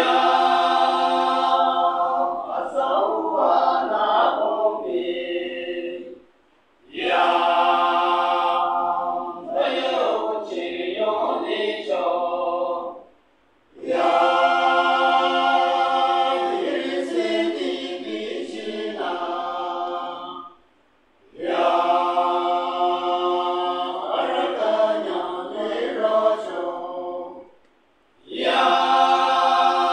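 Men's choir singing unaccompanied, in phrases of about six seconds with a short breath pause between each.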